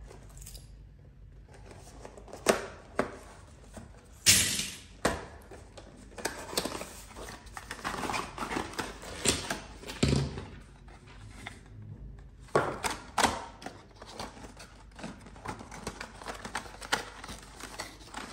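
Cardboard packaging of a reed diffuser being handled and opened: irregular taps, knocks and rustling of card and paper. Sharper knocks come about four seconds in and again about twelve to thirteen seconds in.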